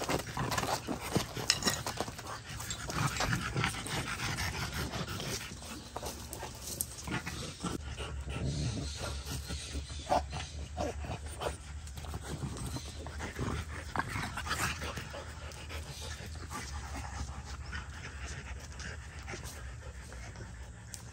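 A French bulldog panting close to the microphone, with scattered snips and rustles from scissors cutting a lamb's wool.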